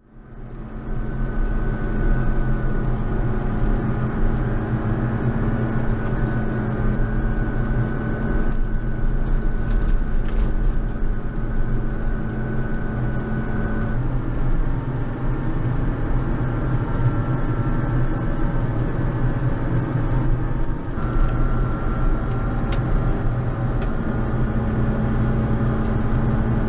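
JCB Fastrac 4220 tractor's diesel engine running steadily under load while snow plowing, with a higher whine over the engine drone. The whine's pitch shifts slightly about halfway through.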